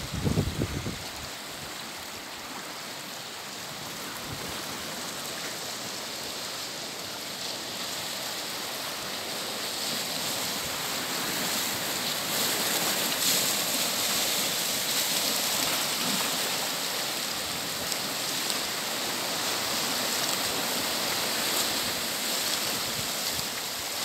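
Sea surf washing and foaming around shoreline rocks: a steady hiss of moving water that slowly grows louder, fuller over the second half. A short buffet of wind on the microphone right at the start.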